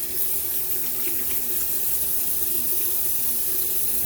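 Bathroom sink tap running steadily while the face is rinsed after a shave.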